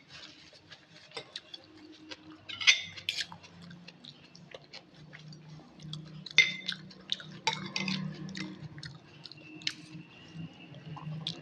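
A person chewing a mouthful of instant noodles in chicken broth, close to the microphone, with many small wet clicks and a few louder noisy bursts.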